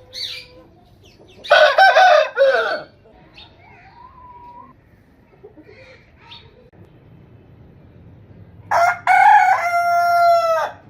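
A rooster crowing twice: a shorter crow about a second and a half in, and a longer crow with a held final note near the end. Fainter short calls come in between.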